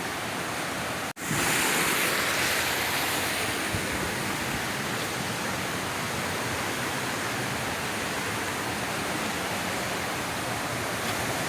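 Steady rushing of a small waterfall, with a sudden brief dropout about a second in.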